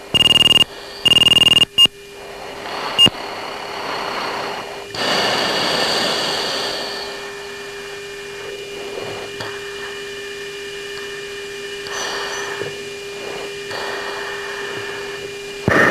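Two short, loud electronic tones on a military jet's cockpit audio, about a second apart. After them come a steady low hum and radio hiss.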